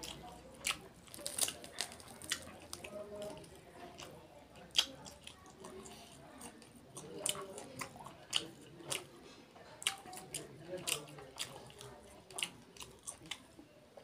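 Close-miked eating sounds: chewing, and bare hands pulling apart curried whole duck meat, with irregular sharp wet clicks and smacks throughout.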